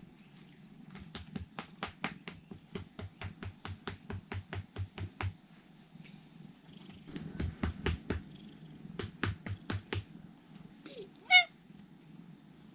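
Rhythmic clicking, about four clicks a second, in two runs, then a domestic cat gives one short, loud meow near the end.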